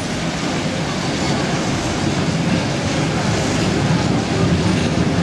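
Vintage open-sided electric tram running on its street rails as it approaches, a steady rumble that grows a little louder near the end.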